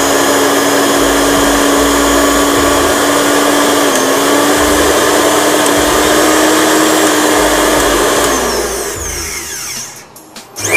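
Flipkart SmartBuy mixer grinder's motor running at steady speed with the jar locked on, smoothly and without much noise. A little past eight seconds in it is switched off and winds down, and it is switched on again right at the end.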